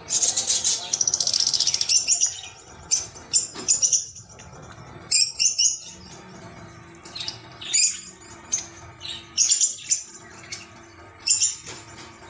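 Rubber squeeze toy being squeezed under water in a basin, giving a dense run of high squeaks for the first two seconds and then short squeaky bursts about once a second, with water sloshing.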